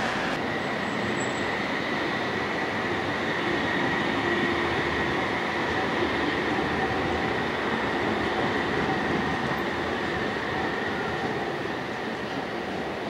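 CAF Urbos 3 tram running through a curve in street track, with a steady high whine over the street noise.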